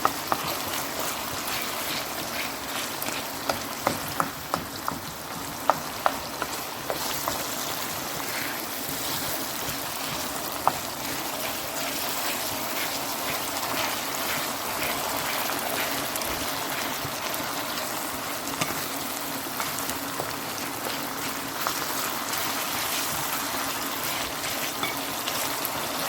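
Saltfish (salted codfish) and herbs sizzling steadily as they fry in a pan. A utensil clicks against the pan several times, mostly in the first seven seconds.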